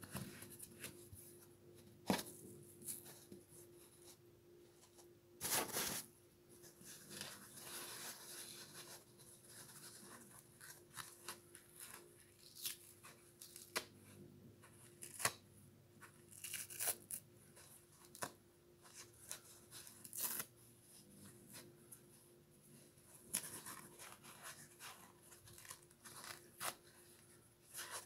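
Foam sponge being plucked and torn by hand off a scouring pad: irregular soft tearing and crackling in short bursts, the longest and loudest about five and a half seconds in.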